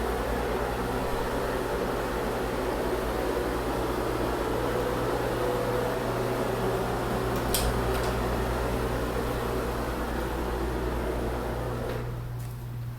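Steady whirring noise over a low hum, with one short click about halfway. Near the end the whir stops, leaving only the hum.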